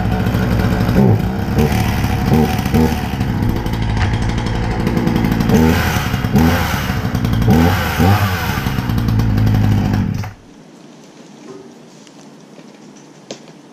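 Ryobi RY3716 two-stroke chainsaw running loud and revved up and down several times. It cuts off suddenly about ten seconds in.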